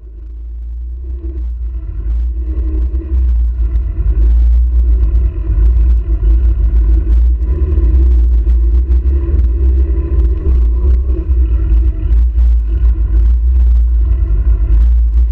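A Marcos historic race car's engine, heard from inside the cockpit. A heavy low rumble builds over the first four seconds and then runs loud and steady, with many short knocks and rattles through it.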